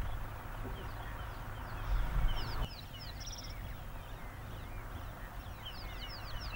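Several wild birds chirping and whistling in short repeated calls over a low rumble and hiss. The rumble and hiss drop suddenly just under three seconds in.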